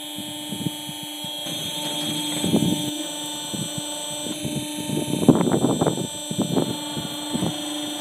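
A steady machine hum with a constant tone, with short bursts of voices about two and a half seconds in and again between five and six and a half seconds.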